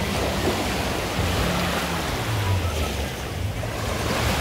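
Sea waves washing and wind on the microphone, under the low hum of a distant jet ski engine towing a banana boat. The engine's pitch drops about two seconds in.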